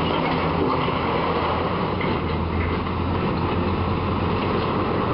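Diesel engine of a tracked demolition excavator running steadily: a constant low hum under continuous noise.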